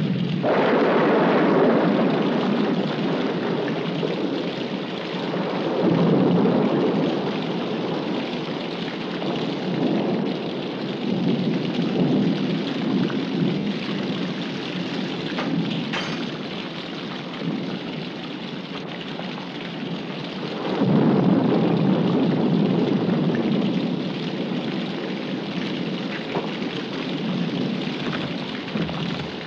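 Heavy rain pouring steadily, with thunder rumbling and swelling up several times, loudest just after the start, around six seconds and again about two-thirds of the way through. A single short sharp crack comes about halfway.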